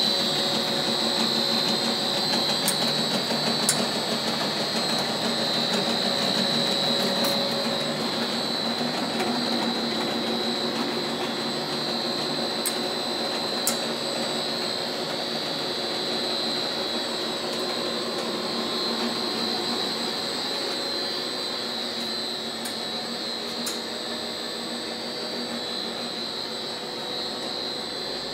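SHJ-30 twin-screw plastic extrusion line running: its electric drive motors and gearbox hum steadily under a high, steady whine. A few faint ticks come through now and then.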